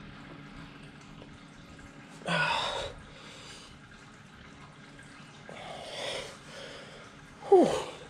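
A man's breaths and grunts of effort while straining to twist a tight oil filter off by hand: a loud huff of breath about two seconds in, a softer one around six seconds, and a short grunt falling in pitch near the end, the loudest sound.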